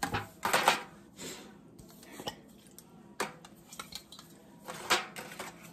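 Disposable aluminium foil loaf pans crinkling and clattering as they are handled and set down, in several short bursts.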